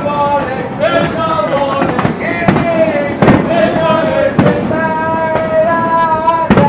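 Fireworks bursting, about five bangs spaced a second or two apart, over music with a held melody.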